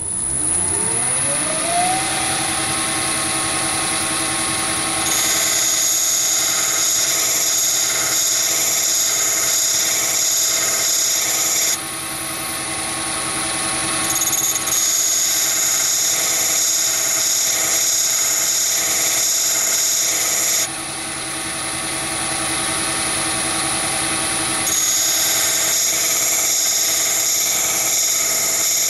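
Chinese mini lathe spindle starting with a rising whine over about two seconds, then running steadily at top speed with a diamond cup wheel mounted. Three times, for about six seconds each, a high steady hiss joins in as the tip of a spot drill is ground against the diamond cup wheel.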